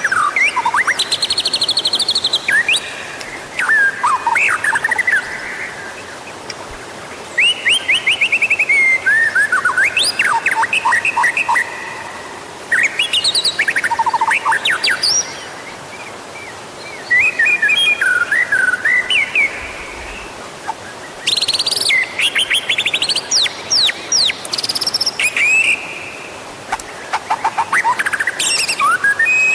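White-rumped shama (murai batu) singing loud, varied phrases of clear whistles, gliding notes and rapid runs of repeated notes, a new phrase every few seconds with short pauses between.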